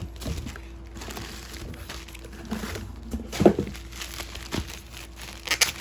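Packaging crinkling and rustling as it is handled, with a few sharper handling knocks; the loudest comes about three and a half seconds in.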